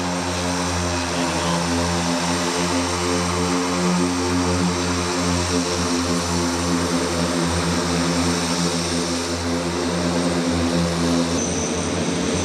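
The many electric motors and propellers of the Hexa, an 18-rotor electric multirotor aircraft, humming steadily with a rushing hiss as it descends to land. About eleven seconds in, the deep hum drops away and a thin high whine starts as the aircraft settles on the ground.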